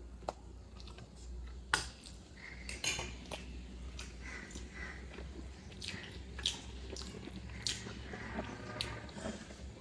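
A person eating sel roti with curry close to the microphone: chewing and mouth sounds with a few sharp clicks, the loudest about two seconds in.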